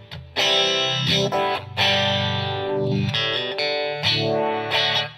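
Clean electric guitar, a Les Paul coil-tapped to single-coil in the middle pickup position, strumming about six ringing chords through a Moen Shaky Jimi uni-vibe pedal. The pedal's sweep rises and falls through each chord.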